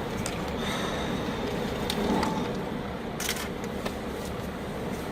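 Steady rumbling road and cabin noise of a car, heard from inside, with a few sharp clicks and a knock about three seconds in.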